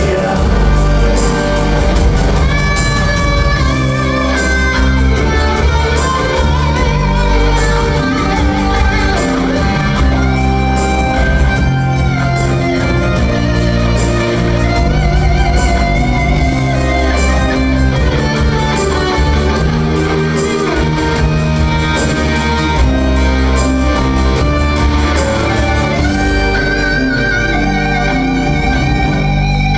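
Live chanson band playing an instrumental passage: guitars and keyboard over bass and drums, with a steady beat.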